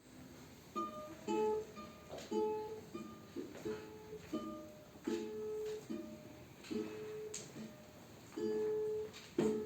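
Music: a melody of short plucked notes, one to two a second, with a few notes held a little longer.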